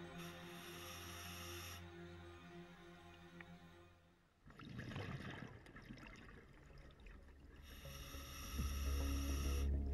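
Quiet background music of sustained synthesizer-like tones that fades out about four seconds in. A short rushing noise follows, then a new piece begins with a deep low drone that grows louder near the end.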